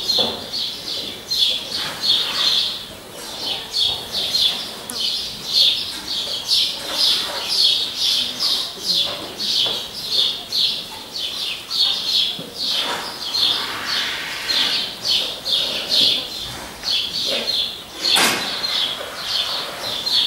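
High bird chirps repeated steadily, about two or three a second, with a brief rush of noise near the end.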